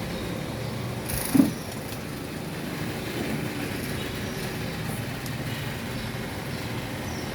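One sharp knock, about a second in, over a steady background rumble.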